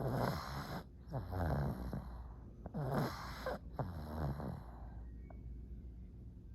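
A pug snoring: four rattling snores in quick succession, then a quieter stretch of about two seconds near the end.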